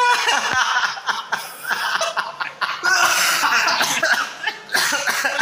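A group of men laughing hard together in loud, breathy bursts.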